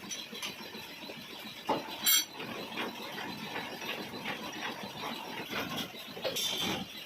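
Lathe cutting tool scraping against a cast iron nut, an irregular rubbing and scraping with scattered clicks and a short high squeal about two seconds in.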